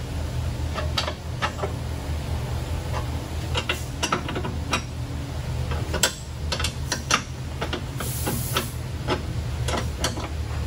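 Irregular metallic clicks and taps of a wrench working a suspension adjustment bolt during a wheel alignment, over a steady low shop hum. A short hiss sounds about eight seconds in.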